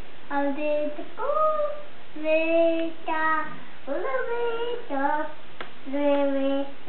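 A toddler's high voice in a sing-song, reading aloud in short phrases of held notes that rise and fall. A brief click sounds about two-thirds of the way through.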